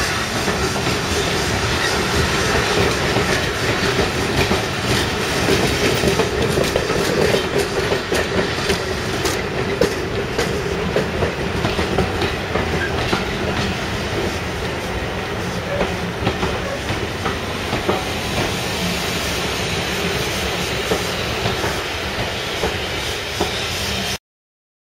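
Train hauled by the steam locomotive Tornado 60163 rolling past, its wheels clicking steadily over the rail joints. The sound cuts off suddenly near the end.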